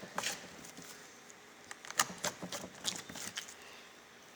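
Slime being squeezed and stretched by hand, giving irregular small sharp clicks and pops, several close together about two and three seconds in.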